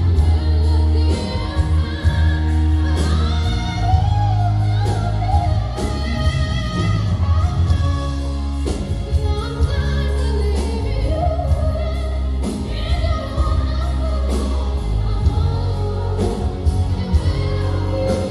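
A female singer with a live backing band, the bass heavy underneath, performing a song as a sound-check practice run.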